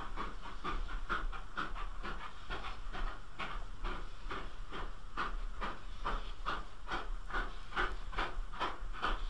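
Ex-GWR steam locomotive exhaust beating hard and steadily, about three sharp beats a second, as a goods train headed by a Hall-class 4-6-0 and banked in the rear by a 5100-class 2-6-2 tank works up the bank to the summit.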